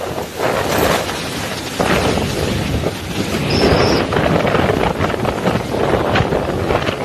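Typhoon wind gusting hard and buffeting the microphone, a loud rushing roar that swells and eases in gusts. A short high whistle sounds briefly near the middle.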